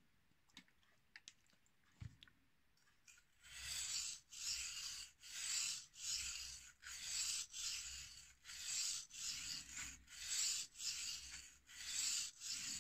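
Carving knife blade scraped back and forth on the wet 1000-grit side of a combination waterstone. After a few faint clicks it becomes a regular rasping rub of about two strokes a second, starting about three seconds in. The strokes are working to raise a burr along the edge.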